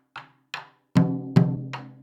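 Taiko drumming on a steady beat: two light, sharp wooden clicks, then two heavy strikes on the drum head about a second in that ring with a low tone and fade.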